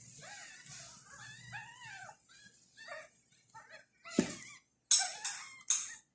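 Very young tabby kittens mewing, many short high calls that rise and fall. About four seconds in there is a single thump, then three short, sharp, louder bursts near the end.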